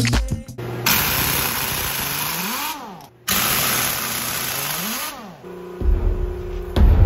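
Pneumatic impact wrench running in two bursts of about two seconds each, removing truck-trailer lug nuts: a loud air hiss with the motor's pitch rising and then falling in each burst.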